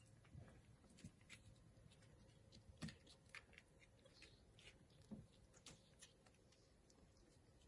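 Faint, scattered light taps, clicks and soft thumps of young kittens moving about in their bedding, the most marked about three seconds in and again about five seconds in.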